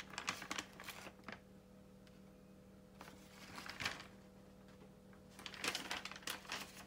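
Soft clicks and rustling from small objects being handled on a table, in three short spells, over a faint steady electrical hum.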